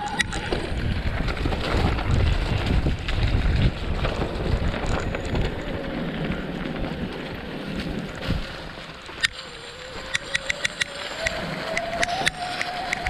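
Mountain bike ridden along a dirt and leaf-strewn trail: wind buffeting the microphone, with the bike rattling and clicking over bumps. A faint whine rises and falls in pitch with speed.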